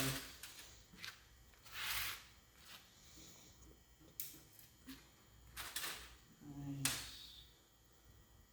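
Scattered metal clicks and two short scraping rasps from hand work on the steel spring frame of a 1950 Chevrolet rear seat, where springs and reinforcing rod are being fastened with hog rings.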